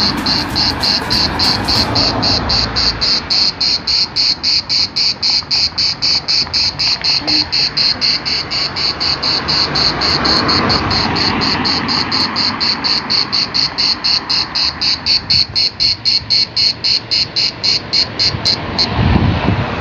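A cicada singing: a loud, steady train of buzzing pulses, about four a second, that stops abruptly near the end.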